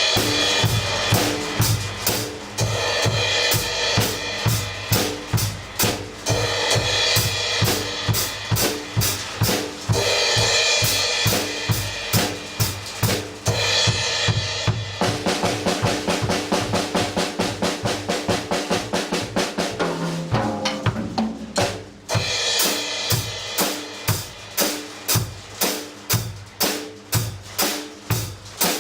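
Drum kit played on its own with no backing track: a steady beat of kick and snare with crash cymbals. About halfway through comes a fast run of rapid strokes lasting several seconds, then a fill, after which the beat with cymbals resumes.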